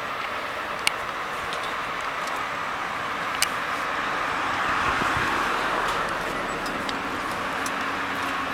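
Steady traffic noise that swells about halfway through as a vehicle passes, with two sharp clicks about one and three and a half seconds in.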